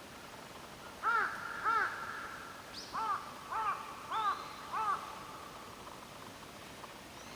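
A bird calling six times: short calls that each rise and fall in pitch, two close together about a second in, then four in an even row a couple of seconds later.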